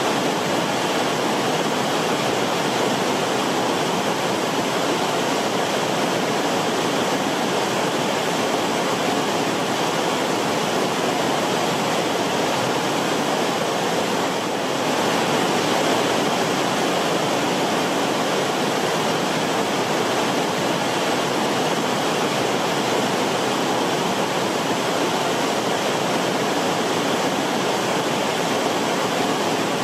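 A river's water rushing in a steady, even wash of noise, briefly a little softer about halfway through.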